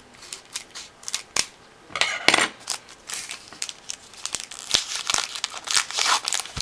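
A trading-card pack being opened by hand: a few sharp clicks, then the wrapper crinkling and tearing from about two seconds in.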